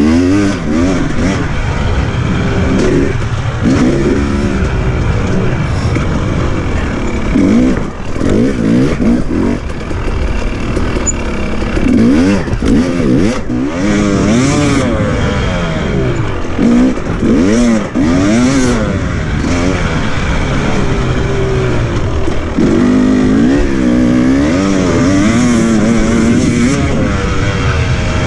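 Husqvarna TE 300i's two-stroke single-cylinder engine revving up and down again and again as the enduro bike is ridden along a dirt trail, heard close up from a camera mounted on the bike.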